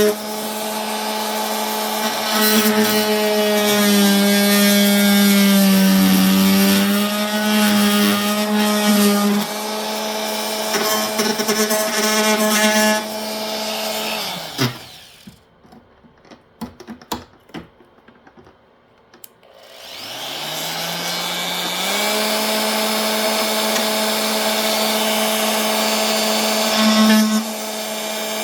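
Warrior 2 Amp corded oscillating multi-tool running with a steady tone, its pitch sagging for a few seconds as the blade cuts into the material. About halfway through it shuts off, there are a few light clicks, and then it starts again, rising in pitch as it speeds up, and runs on steadily.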